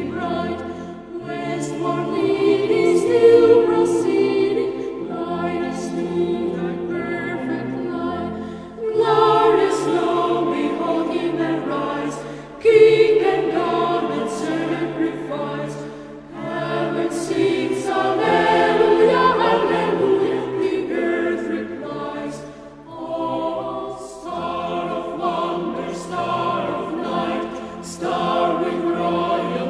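Background music: a choir singing slow, held chords.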